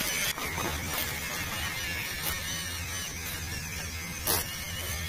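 Small electric motor and gearbox of a 1/12 scale MN99 RC Defender whirring steadily as the truck crawls over a dirt trail, with a few short clicks and knocks from the tyres and chassis on stones; the sharpest knock comes about four seconds in.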